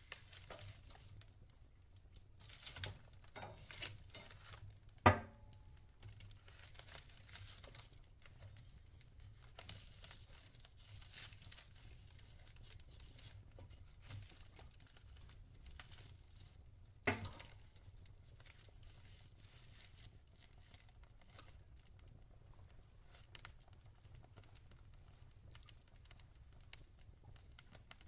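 Log fire crackling: a faint steady hiss with many small ticks, and two sharp pops, one about five seconds in and one about seventeen seconds in.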